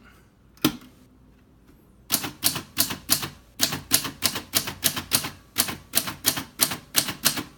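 1941 Smith-Corona Comet portable manual typewriter being typed on: a single key strike, a pause of over a second, then a steady run of key strikes at about five a second.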